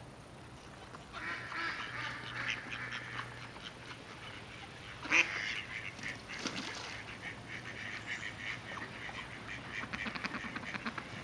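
Mallards quacking: runs of quick, chattering quacks start about a second in and carry on, loudest about halfway through.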